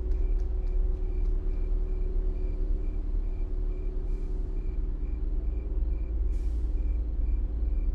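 Low, steady droning background score with a deep rumble beneath it and a faint high pulse ticking about twice a second; two brief hissing swells rise about four and six seconds in.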